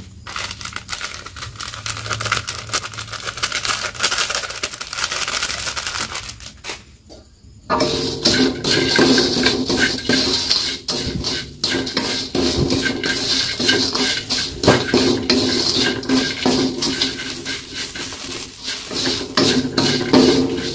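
Dry, crisp instant noodles frying with a dense crackle in a stainless steel wok. From about eight seconds in, a louder, busier run of scraping and clattering as a wooden spatula stirs and tosses them against the steel.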